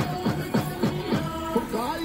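Indian-style dance music with a steady drum beat, the drum strokes falling in pitch, under held melodic notes.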